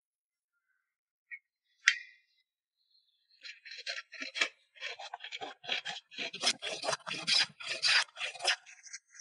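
Wooden hand plane shaving a board in a quick run of short rasping strokes, several a second. A single sharp knock comes about two seconds in, before the planing starts.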